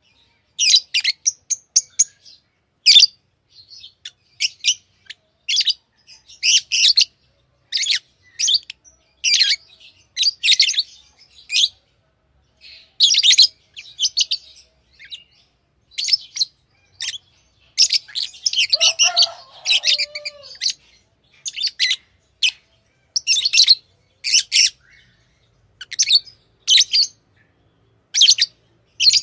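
Pet lovebirds chirping: short, sharp, high chirps repeated every second or so, with a busier flurry of calls and a lower falling note about two-thirds of the way through.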